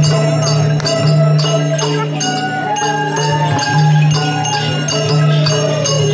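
Traditional Newari music for a Lakhe dance: a fast, steady beat of drums and clashing cymbals with jingling bells and a few held tones that change pitch.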